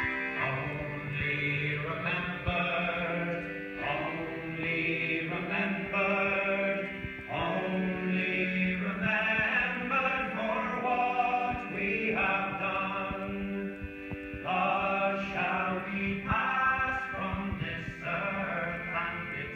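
Male voices singing a song together to a piano accordion, the accordion's held notes sounding steadily under the singing.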